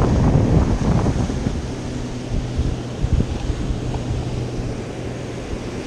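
Wind buffeting the microphone over surf breaking on jetty rocks, gustiest in the first second. From about a second and a half in, a steady low hum sits underneath.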